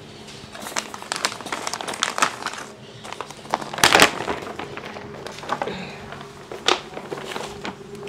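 Sheets of paper rustling and crinkling as they are handled and leafed through. Dense crackling fills the first half, loudest about four seconds in, then thins to a few separate crinkles.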